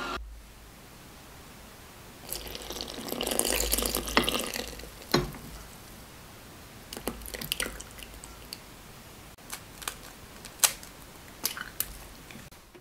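A stand mixer's motor cuts off at the very start. Then liquid ingredients are poured into flour in a stainless steel mixing bowl: a pouring splash about two to four seconds in, followed by scattered drips and light clicks.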